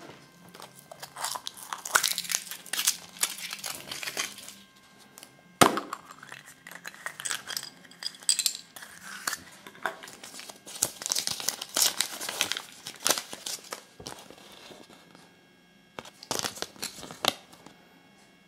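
Thin foil wrapper of a Kinder Surprise chocolate egg crinkling and tearing as it is peeled off by hand, in runs of crackly rustles, with one sharp snap about five and a half seconds in and a last short burst of rustling near the end.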